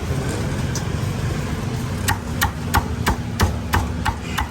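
Cleaver chopping roast pork on a chopping block: a run of about eight sharp, even chops, roughly three a second, starting about two seconds in.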